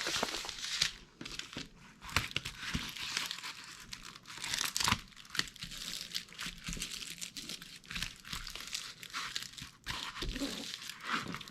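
Plastic packaging on a diamond-painting canvas crinkling and rustling as it is handled, in irregular stops and starts.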